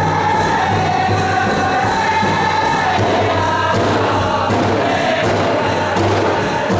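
Powwow drum group singing a grass-dance song, a falling melody in unison over a steady beat on the big drum.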